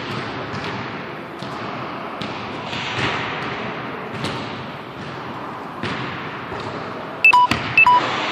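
Scattered thuds and ball bounces echoing around a gym over a steady room noise. Near the end come two short electronic beeps about half a second apart, a device's low-battery warning.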